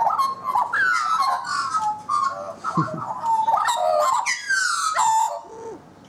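Black-backed Australian magpie carolling: a loud run of warbling, fluting whistles that slide up and down in pitch, stopping about five seconds in.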